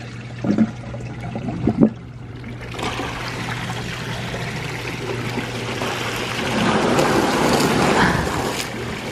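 Bullfrog Spa M9 hot tub jets switching on: after two soft knocks, water starts churning about three seconds in and grows louder near the end, over a steady low hum.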